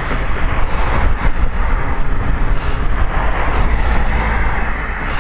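Wind buffeting the microphone of a camera riding on a moving bicycle: a steady rumble with road and tyre noise underneath. A few faint high chirps come through about halfway in.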